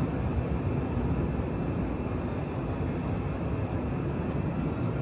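Steady low running noise of a Tsukuba Express electric commuter train standing at the platform, its onboard equipment running, with a faint click about four seconds in.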